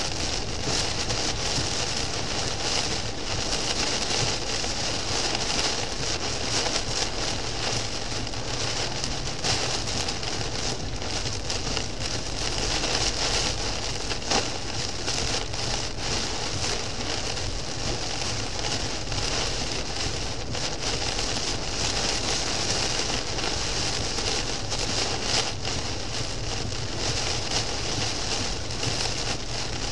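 Torrential rain pelting a moving car's windscreen and roof, heard from inside the cabin. It is a steady, dense hiss crackling with countless drop impacts.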